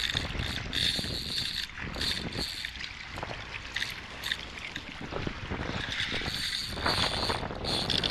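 Spinning reel under heavy load from a large jack crevalle, buzzing in short bursts as it is cranked and gives line during the fight. Wind rumbles on the microphone throughout.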